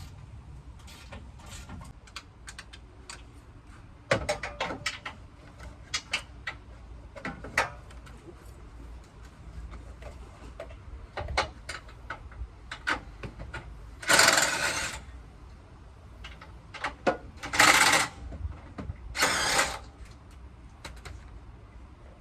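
Tools clicking and knocking against metal truck parts during a teardown, with three loud, noisy bursts about a second long in the second half.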